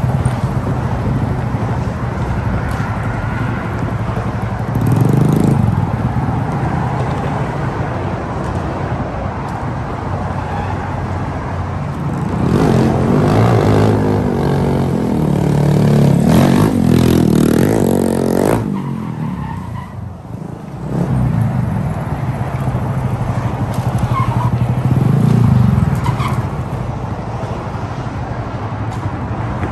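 Small mini bike engines running and revving. The pitch rises and falls in several surges, about 5, 13, 17 and 25 seconds in, with a short dip in level about 20 seconds in.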